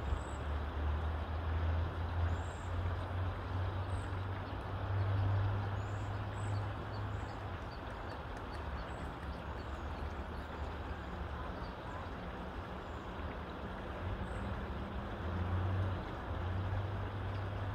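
Steady background noise with a low, wavering engine drone, loudest about five seconds in and again near the end, and a few faint high chirps.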